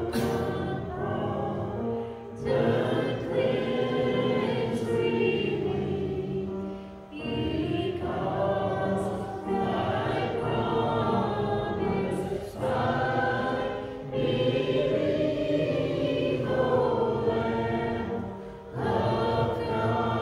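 A church congregation singing a hymn together, in phrases of a few seconds with short breaks between them.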